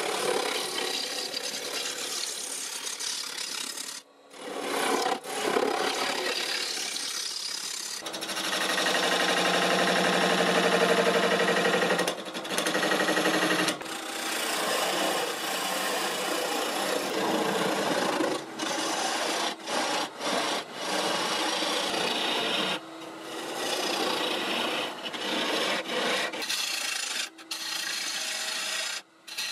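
Gouge cutting the face of a spinning piece of wood on a lathe, peeling off shavings with a steady scraping hiss. The cutting comes in several stretches separated by short breaks, and is loudest about a third of the way in.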